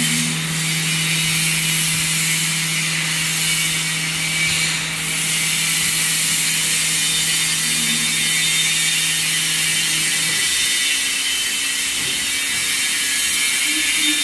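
Planetary mixer with high-speed and low-speed drives running: a steady mechanical whir of its motors, with a low hum that stops about ten seconds in.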